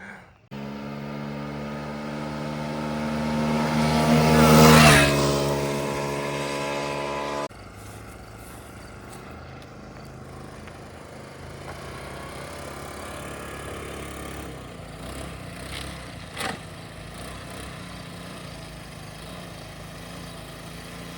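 GY6 scooter engine at full throttle, getting louder as it comes closer and passes, its pitch dropping as it goes by. About seven seconds in, the loud engine sound cuts off abruptly, and a fainter, steady engine sound carries on.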